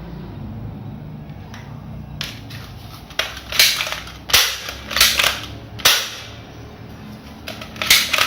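Toy gun firing: a series of about seven sharp, short pops and clicks at irregular intervals.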